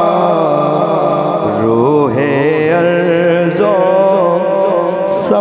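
Unaccompanied male voice singing a naat, holding long wavering melodic notes without clear words, with a brief hiss near the end.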